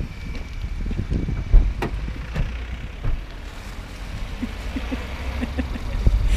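Wind buffeting the microphone as a steady low rumble, with rustling and a few knocks from plastic-wrapped bags being handled; the sharpest knock comes about one and a half seconds in.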